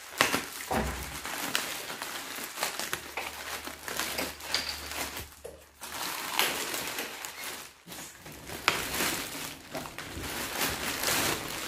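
Plastic courier mailer and air-column bubble wrap crinkling and rustling in the hands, with many short sharp crackles, as the mailer is opened and the wrapped package is pulled out.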